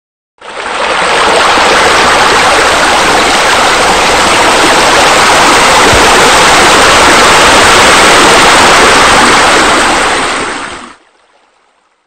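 Steady rush of falling, splashing water from a pool water feature, fading in just after the start and dying away about a second before the end.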